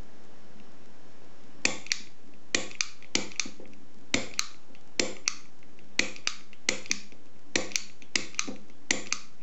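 SouthOrd manual pick gun (snap gun) firing against the pins of a 5-pin lock cylinder: sharp snapping clicks, mostly in quick pairs, repeated about once a second, starting a little under two seconds in.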